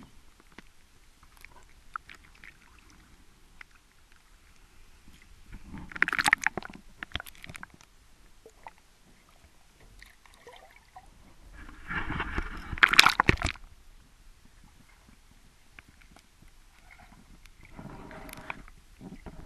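Water sloshing and splashing as heard by a camera in a waterproof housing at the waterline of a boat hull, with scattered faint knocks. There are two louder bursts of splashing, one about six seconds in and a longer, louder one around twelve to thirteen seconds, and a weaker one near the end.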